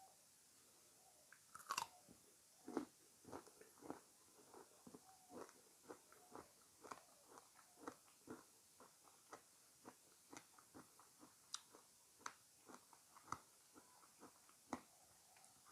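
A person biting into crisp fresh fruit and chewing it: two louder crunching bites near the start, then steady chewing at about two chews a second.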